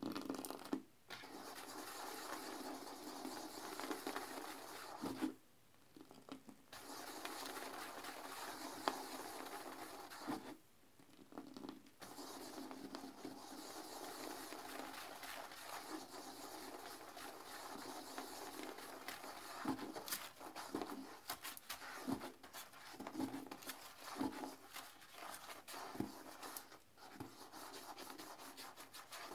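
Bristle toilet brush scrubbing a porcelain toilet bowl in sudsy cleaner water, a continuous swishing scrape with a few short pauses. After about twenty seconds the strokes turn choppier and quicker.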